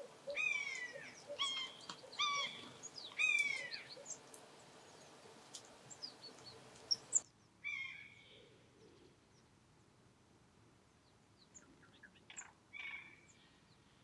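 Common buzzard calling: four short mewing calls that fall in pitch, in quick succession over the first few seconds, followed by a few fainter calls and scattered small chirps and ticks.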